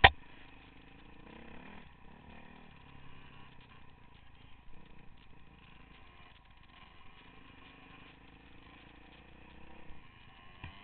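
A dirt bike engine running along a trail, its pitch rising and falling as the throttle changes. A single sharp knock right at the start is the loudest sound.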